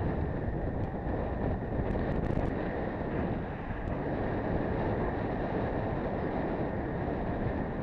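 Steady wind rush on the microphone of a camera on a moving road bike, with a few faint ticks in the first couple of seconds.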